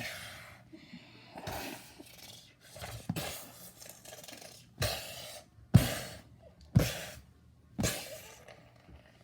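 A run of short rustling and scraping noises, then four sharp knocks about a second apart, the second the loudest.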